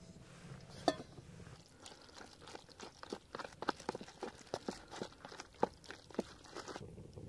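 A spoon stirring rehydrating pasta in a foil-lined freeze-dried meal pouch: quick crinkling of the packaging with scrapes and clicks, after a single sharp knock about a second in.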